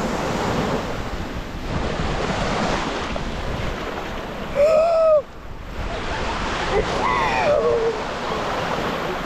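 Ocean surf on a beach, with strong wind buffeting the microphone. A woman's voice sounds briefly about halfway through and again a couple of seconds later.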